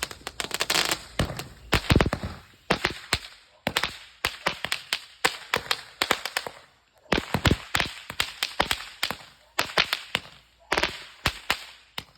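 Consumer fireworks going off: a long run of sharp bangs and crackles in quick clusters, with short pauses between them.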